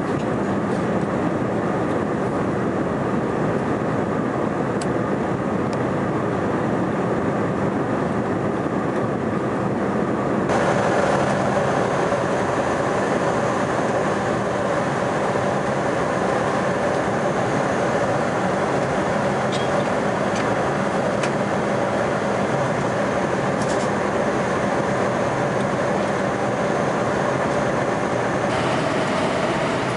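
Steady jet airliner cabin noise in cruise, the mix of engine and airflow sound heard from a passenger seat. About ten seconds in it changes abruptly and becomes brighter, with a faint steady hum in the middle range.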